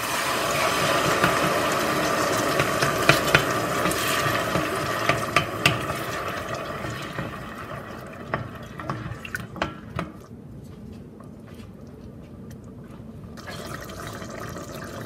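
Chopped fresh tomatoes hitting hot oil in a stainless steel pot: a loud sizzle that starts at once and dies down over the next several seconds, with a wooden spoon stirring and knocking against the pot a number of times.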